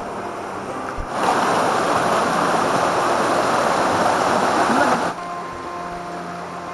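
Rocky river rapids rushing, a loud steady noise of white water that comes in abruptly about a second in and cuts off about five seconds in. Quieter steady tones sit under it before and after.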